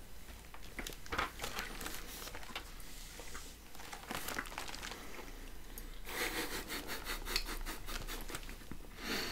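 Plastic packaging of a chocolate box crinkling and rustling as it is handled, with a longer stretch of crinkling about six seconds in.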